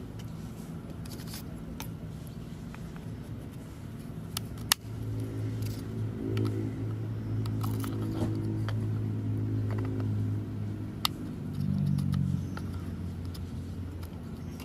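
A steady engine hum from a motor vehicle, growing louder and more pitched about a third of the way in and easing off near the end. Over it come sharp clicks and taps of plastic and metal parts as an angle grinder's armature and housing are fitted together by hand, the loudest click just before the hum swells.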